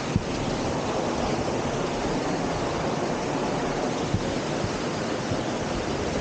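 Steady rushing of a waterfall and cascading creek, with a brief faint knock just after the start and another about four seconds in.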